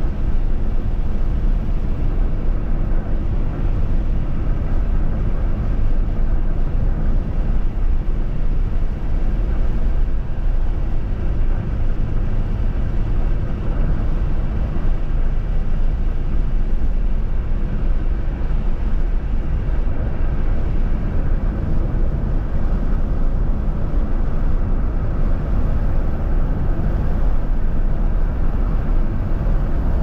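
Steady road and engine noise of a car being driven, heard from inside the cabin.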